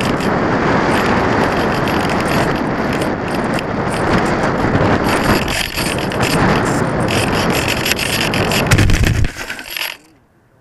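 Loud rush of wind over the onboard Mobius camera of a Taboo XL discus-launch glider in flight, with scattered clicks. About nine seconds in, a low thud and a scrape as the glider touches down on grass, and the rush cuts off about a second later as it comes to rest.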